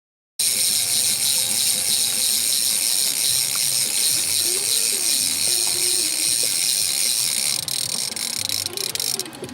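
Fishing reel's click ratchet buzzing in a fast, steady rasp as line runs, starting abruptly and thinning out near the end.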